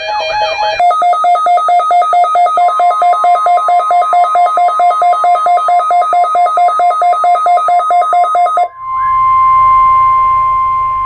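An electronic alert beeping rapidly, about five beeps a second, then stopping near the end. The steady 1050 Hz NOAA Weather Radio warning alarm tone, faint under the beeping, then sounds loud and alone.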